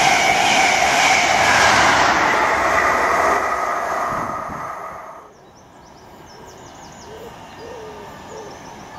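Loco-hauled intercity train of Mark 3 coaches passing at speed, a steady rush of wheels on rail and air that fades as the last coaches go by. About five seconds in it gives way abruptly to a much quieter background of birds chirping, with a faint rumble slowly rising as an electric multiple unit approaches.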